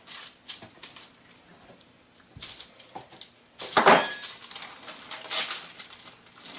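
A metal table knife clinks down onto the counter about four seconds in, with a short ringing tone. Around it are soft rustles of parchment paper and the quiet handling of a soft ball of dough being split by hand.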